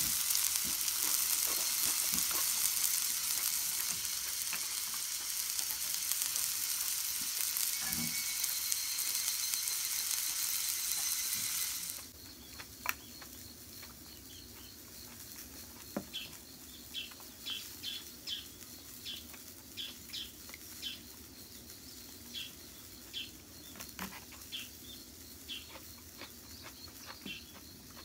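Food sizzling steadily in a hot cast-iron skillet on a gas camp stove. After about twelve seconds the sizzle cuts off, leaving a quieter background of short high chirps repeating irregularly, with a few light clicks.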